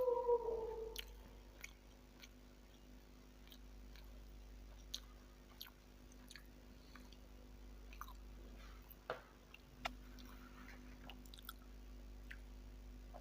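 Faint close-miked chewing of soft sponge dosa: scattered wet mouth clicks and squishy chews. A short gliding vocal cry at the very start is the loudest sound.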